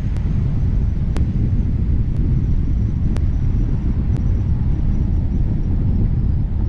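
A car driving at steady speed: an even low rumble of road and engine noise, with a faint tick about once a second.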